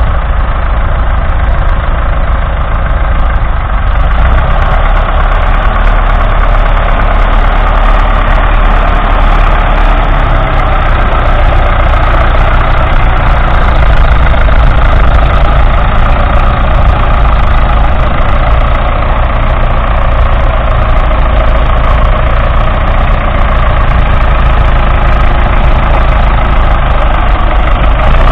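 1976 Ford 5700 tractor's 3.8-litre four-cylinder diesel engine running loudly and steadily under load, pulling a two-furrow reversible plough through the soil.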